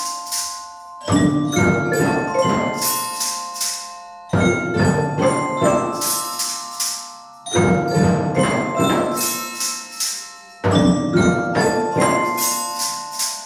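Music played by a student ensemble on tuned mallet percussion, ringing and bell-like, with other percussion. A short phrase repeats about every three seconds, each time starting with a sudden loud entry that fades away.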